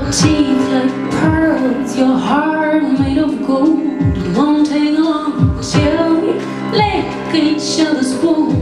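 A woman sings a melody into a microphone over backing music of held sustained tones. A deep bass thump that falls in pitch comes about every second and a half.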